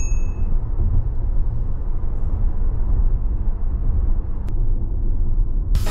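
Toyota Harrier's steady road and engine rumble heard from inside the cabin while driving at road speed, with a single faint tick about four and a half seconds in.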